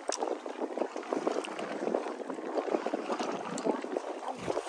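Water splashing and lapping against a boat's hull: a steady, irregular crackle of small splashes.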